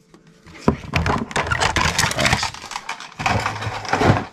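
Cardboard Funko Pop box and its plastic insert being handled and opened: a run of crackling, clicking rustles.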